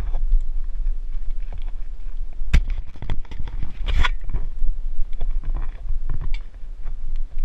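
Wind rumbling on a hand-held GoPro's microphone during a ride, with scattered sharp knocks and taps on the camera, two louder ones about two and a half and four seconds in.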